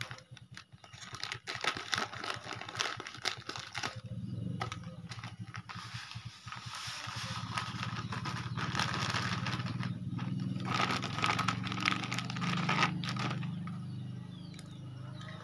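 A plastic packet rustles and clicks as it is opened, then granular pesticide pours out in a rattling hiss onto a heap of granular fertilizer. A low steady motor hum runs underneath from about four seconds in.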